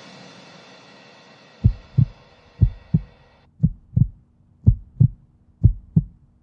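Heartbeat sound effect: pairs of low 'lub-dub' thumps about once a second, starting about one and a half seconds in. It runs under the fading tail of electronic music, which cuts off about three and a half seconds in.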